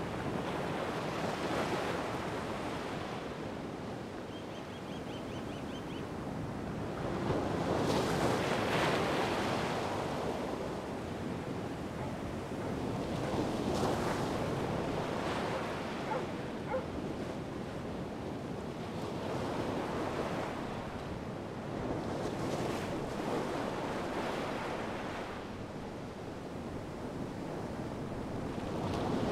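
Atlantic surf breaking on the shore, swelling and fading in surges every several seconds.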